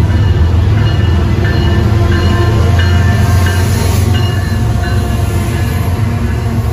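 Union Pacific diesel-electric freight locomotives passing close by at speed, their engines running with a loud, steady low drone. The drone eases a little after about four seconds as the lead units go by.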